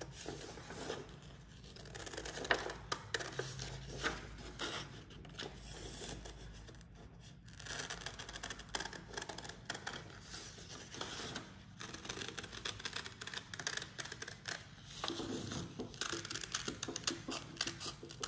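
Scissors cutting around a circle in a sheet of paper: a string of short, irregular snips with the paper rustling.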